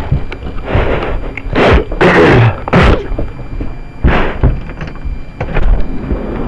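Blizzard wind rushing over the microphone in irregular gusts, with a few dull thumps.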